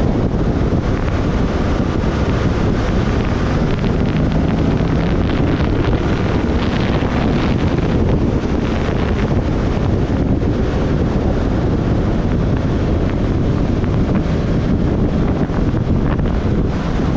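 Steady, heavy wind noise on the microphone of a camera riding on a moving motorcycle, with the motorcycle's engine faintly heard beneath it.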